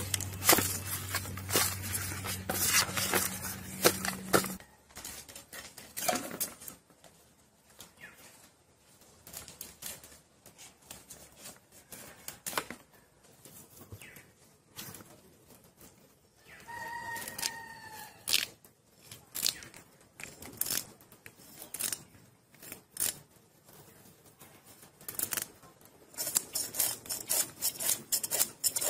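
Snakehead fish being rubbed in ash and scraped against a boti blade: irregular scraping and clicking, densest near the start and near the end. A low hum runs through the first few seconds, and a chicken calls once, briefly, about two-thirds of the way through.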